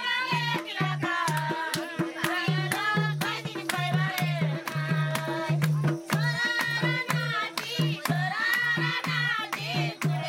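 Nepali dohori folk song: voices singing over a steady drum beat, with sharp percussive clicks.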